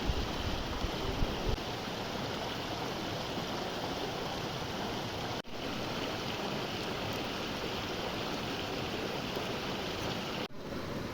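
Steady rushing of flowing water, like a stream, which breaks off for an instant twice.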